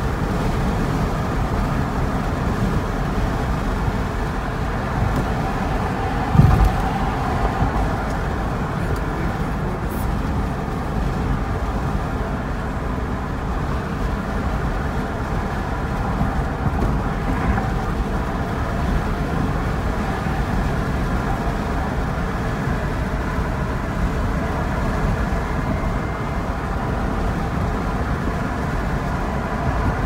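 Steady road and engine noise inside a moving car's cabin, with a single thump about six and a half seconds in.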